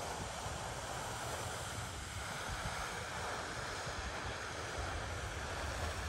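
Wind rumbling on the microphone over a steady outdoor rushing hiss.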